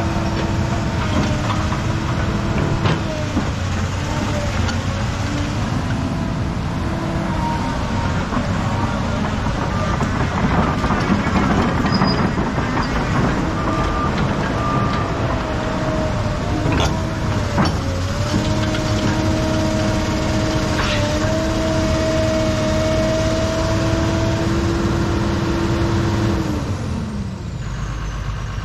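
Kobelco SK250LC excavator's diesel engine running under load with a steady hydraulic whine as the machine tracks and swings, with a few clanks. Near the end the whine's pitch falls and the engine slows down.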